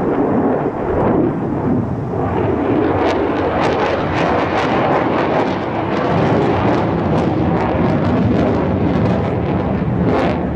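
Lockheed Martin F-35A's single Pratt & Whitney F135 afterburning turbofan heard from the ground as the jet flies a display manoeuvre: a loud, steady rush of jet noise with frequent sharp crackles from about two seconds in.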